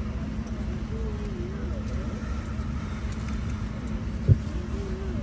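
Steady hum of a Boeing 787-10 airliner cabin, with faint voices of other passengers in the background. A single short, low thump about four seconds in.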